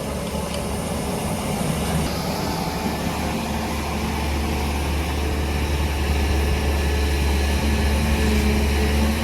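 Heavy diesel engine of an excavator or tipper truck running steadily, growing a little louder in the second half.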